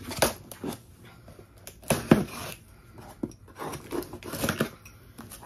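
Knife slicing through the packing tape on a cardboard shipping box, with a series of sharp scrapes and rips, loudest about two seconds in, followed by the cardboard flaps rustling as the box is worked open.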